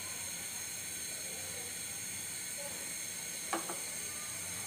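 Steady hiss of hot cooking oil in an iron karahi on a gas burner as battered eggplant slices go in to fry, with a short double knock about three and a half seconds in.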